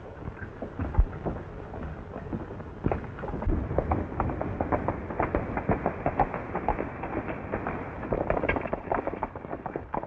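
Horse galloping: a fast, dense run of hoofbeats on hard ground, busier and louder from about three seconds in, over old film-soundtrack hiss.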